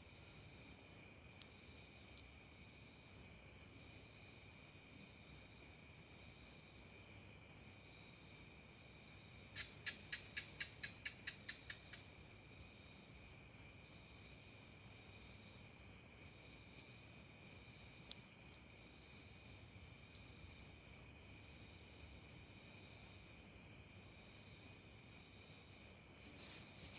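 Crickets chirping in a steady rhythm, about three pulses a second, over a steady high insect trill. About ten seconds in, a quick run of about eight sharper chirps stands out.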